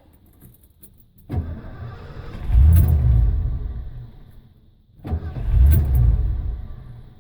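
1989 Ford F-150's 5.0-liter V8 cranked twice. Each time it catches, runs briefly and fades out as it dies. It kind of starts but won't keep running.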